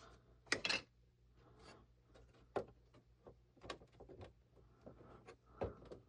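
Faint clicks, taps and rubbing of plastic model-kit parts being handled and pressed into place, a roof piece fitted into the station's tower. The loudest clatter comes about half a second in, followed by scattered single clicks.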